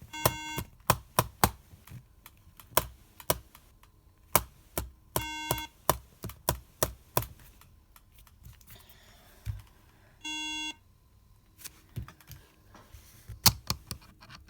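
MacBook Air sounding one beep about every five seconds, three times: a single repeating tone of the kind Macs give at power-on to signal a memory (RAM) fault. Many sharp clicks and taps from the laptop being handled run in between.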